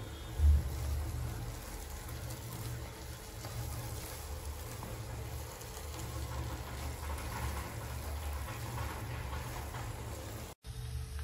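Thick rava kesari cooking in ghee and oil in a nonstick kadai, soft bubbling as a silicone spatula stirs and presses it, over a steady low hum. A single low thump about half a second in, and the sound cuts out briefly near the end.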